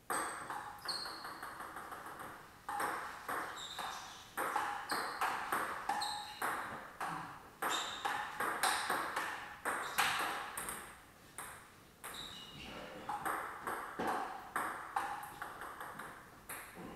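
Table tennis rallies: the celluloid ball clicking off paddles and the table in quick, sharp knocks, a couple of hits a second. There are brief breaks between points.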